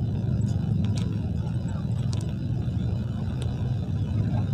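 City road traffic: a steady low rumble of car engines in slow, congested traffic, with a few faint clicks.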